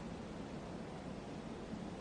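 Steady, faint background hiss of room tone, with no bark or chime.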